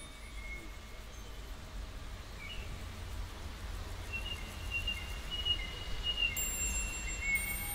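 Outdoor ambience: small birds singing in thin whistled notes, most steadily from about halfway through, over a low, steady rumble.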